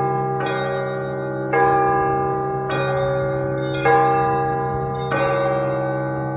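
Russian Orthodox church bells ringing: five strikes on the higher bells, a little more than a second apart, over a steady low hum. The last strike fades out near the end.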